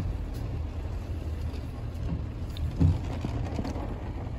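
Rain falling on a car, heard from inside the cabin as a steady low rumble, with two dull thumps, one at the start and one nearly three seconds in.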